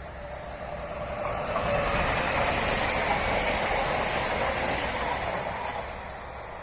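Electric multiple-unit train passing by: a rushing wheel-and-rail noise that swells over about two seconds, holds, and fades away near the end, with no horn sounding.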